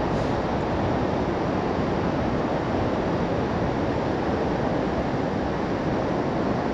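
Steady rush of a fast, turbulent mountain river pouring through a narrow rock gorge.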